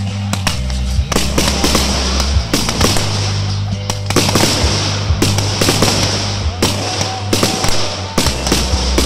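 A fireworks display going off: a dense run of sharp bangs and crackling from aerial shells bursting overhead, with music playing underneath.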